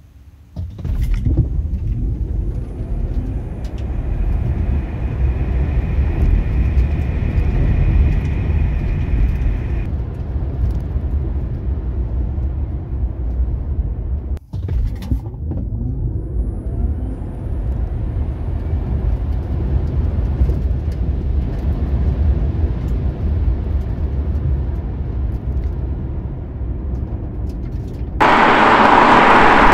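Inside the cabin of a Tesla Model 3 Performance, its two electric motors whine and rise in pitch over loud road and tyre rumble as it accelerates hard from a standstill. A second run starts about halfway through. Near the end a much louder rushing noise cuts in suddenly.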